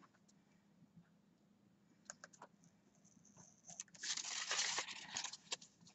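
Craft paper being handled: a few light taps and crinkles about two seconds in, then a loud rustle of paper about four seconds in that lasts over a second.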